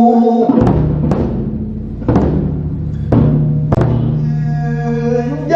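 Daebuk, the large Korean barrel drum, struck five heavy strokes at uneven intervals over a low steady backing tone, after a held sung note breaks off about half a second in.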